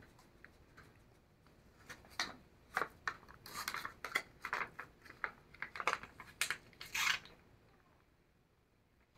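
Hands handling a small object: a run of irregular clicks and crinkly rustles, busiest in the middle, quieting near the end.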